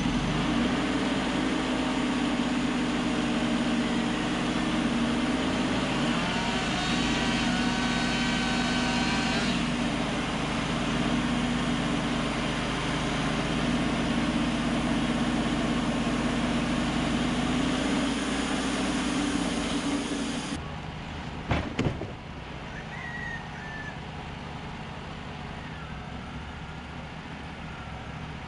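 Wood-Mizer LT35 portable band sawmill running under load, its bandsaw blade cutting through a large Douglas fir log: a steady engine drone with a whine that rises several times around seven to nine seconds in. About twenty seconds in the sound drops abruptly to a quieter engine running, followed by two sharp knocks.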